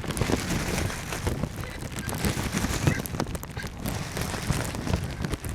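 Rain falling, with scattered sharp drop ticks and a low rumble of wind on the microphone.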